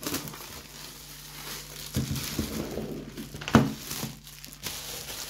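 Clear plastic shrink-wrap being pulled off a cardboard game box and crumpled in the hand: continuous crinkling and crackling, with a sharp snap about two seconds in and a louder one about three and a half seconds in.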